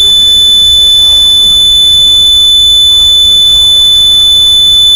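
A steady high-pitched electronic tone with a low rumble beneath it.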